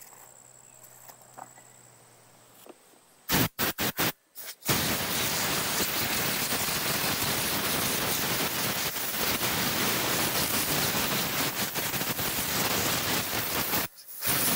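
Compressed-air blow gun with a long nozzle hissing: four or five quick short blasts about three seconds in, then one steady blast for about nine seconds, and another short blast near the end, blowing debris out of a riding mower's engine.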